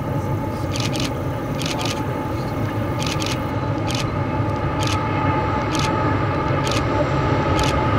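Norfolk Southern diesel freight locomotives working toward the listener, a low engine rumble growing steadily louder as the train approaches. Camera shutter clicks come every half second to a second over it.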